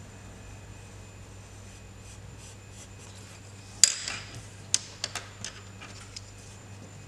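Faint scratching of a pencil drawing on paper, then a sharp click about four seconds in as the pencil is set down on the table, followed by a hand brushing across the paper and a few lighter clicks and taps.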